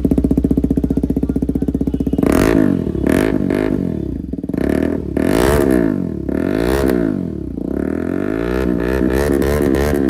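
Hero Karizma XMR 210's single-cylinder engine idling through an aftermarket silencer on a bend pipe with the catalytic converter removed. After about two seconds it is revved in a series of throttle blips, each rising and falling in pitch, with quicker blips near the end.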